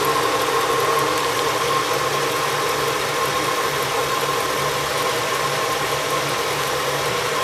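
1985 Oldsmobile 5.0-litre V8 idling steadily with no belt squeal, running with the power steering belt removed so only the alternator belt is driven.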